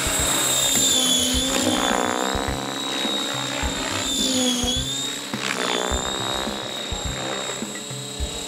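Radio-controlled 3D helicopter's rotor and motor whine, its pitch dipping and recovering twice as it manoeuvres, over background music with a steady beat.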